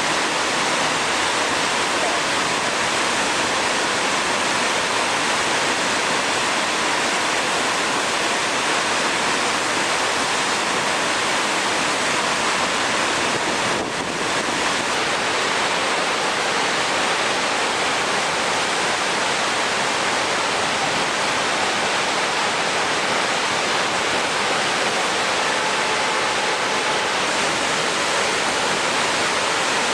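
A steady, loud rush of water, as from fast-flowing floodwater or a heavy downpour, with a brief dip about fourteen seconds in.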